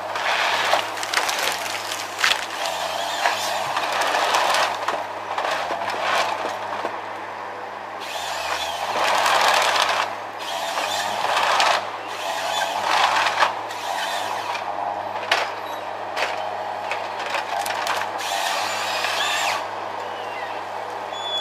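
Tree-cutting machinery at work: an engine runs steadily underneath while loud bursts of sawing through wood come and go every second or two.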